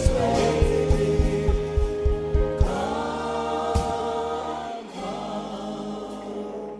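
Gospel worship music: a choir sings over a steady beat, then holds a chord, and the music fades down near the end.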